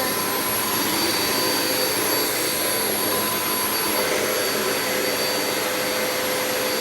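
Hoover Nano Cyclonic UH20020 upright vacuum cleaner running steadily, its motor giving a high whine over the rush of air.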